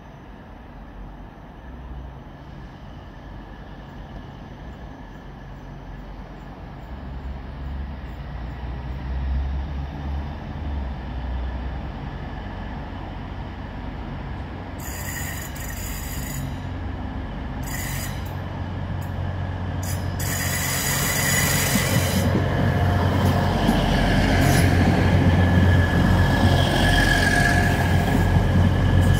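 Passenger train approaching along the platform line and running past close by. A low rumble grows steadily louder, and high wheel-on-rail hiss and squeal join it in the second half, loudest as the carriages go by.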